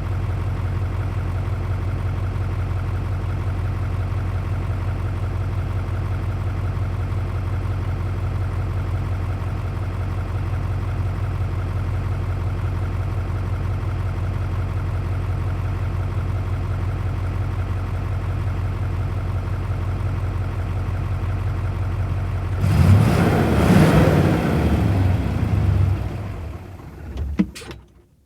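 Diesel V8 engine idling steadily. Near the end it swells into a louder, rougher burst, then dies away and stops, with a sharp click just before it goes silent.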